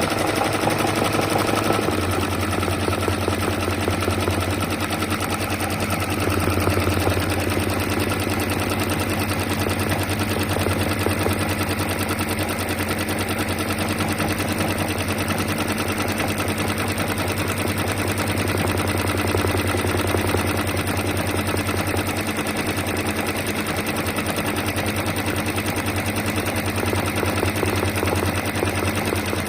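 Brother sewing machine running continuously, the needle mechanism stitching in a fast, even rattle.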